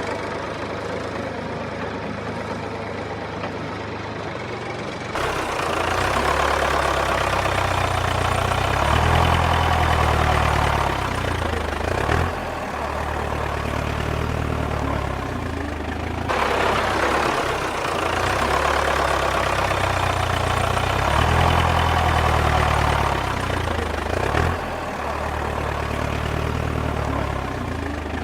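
Engine of a homemade mini bulldozer running. It idles steadily at first, then speeds up about five seconds in, its pitch swelling and sagging as it works. It drops back briefly twice, around the middle and near the end.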